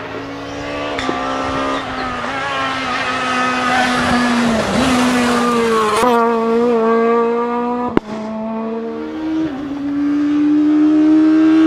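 Rally car engine running hard at high revs, its pitch climbing and dropping back several times as it shifts gear. A single sharp crack sounds about eight seconds in.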